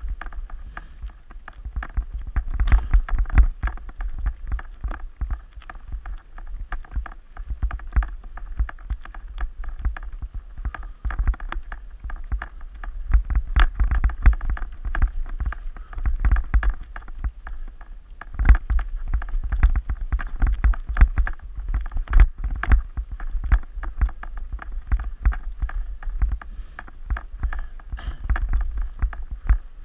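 Mountain bike riding over rough forest singletrack: a constant irregular clatter of knocks and rattles from the bike and camera as they jolt over the ground, over a steady low rumble.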